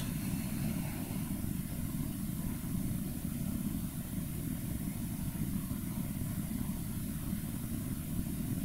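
Steady low rumble of background noise with a faint hiss, unchanging throughout.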